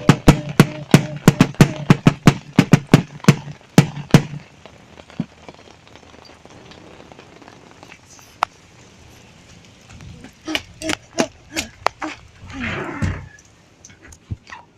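Rapid, even banging, about four sharp knocks a second, that stops about four seconds in. A few more scattered knocks come later, with a short grunt-like voice near the end.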